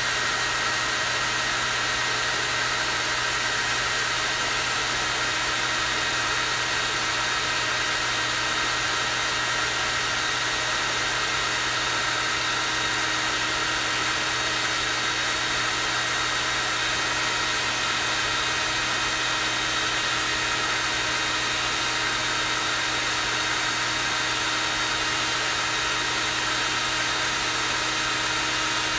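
Hair dryer running steadily on its high, strong-wind setting: an even rush of air with a steady motor whine through it.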